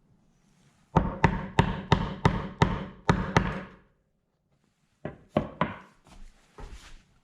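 Sharp knocks of a hard tool striking wood, a run of about eight at roughly three a second, then after a pause a shorter group of three or four.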